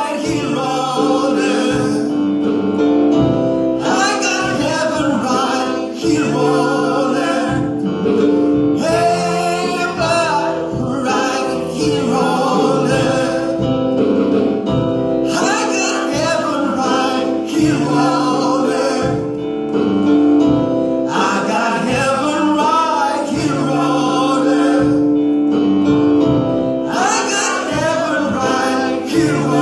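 Gospel vocal group singing together over sustained instrumental backing with a repeated bass line.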